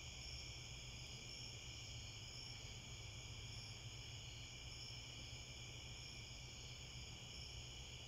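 Faint steady chorus of night-singing insects, with a higher chirp repeating about once a second over it.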